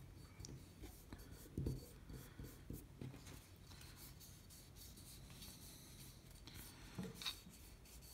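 Faint rubbing and handling of fingers working a little oil over a pistol slide, with a few soft knocks, the clearest about seven seconds in.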